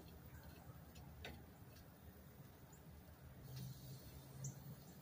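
Near silence: faint background hum with a couple of soft clicks and a tiny high chirp near the end.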